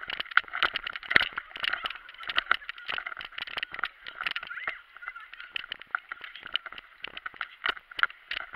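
Irregular muffled knocks and rubbing from a camera on a hand-held pole, jolted with every stride as its holder runs.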